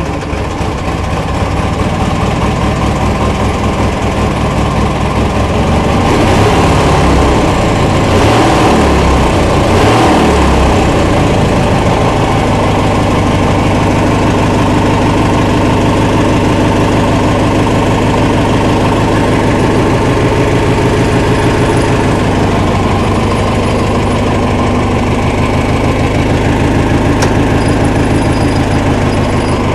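A 1980 Gilson garden tractor's 16 hp Briggs & Stratton opposed-twin engine, just started and running. Its speed rises and wavers for several seconds, then it settles into a steady run.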